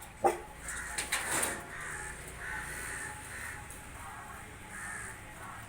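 Crows cawing several times, with one short, loud call just after the start.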